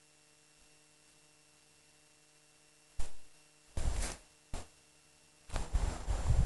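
Faint steady hum of the recording for about three seconds, then wind buffeting the camera microphone: three short gusts a little after three seconds in, turning into a continuous rumbling buffet for the last second.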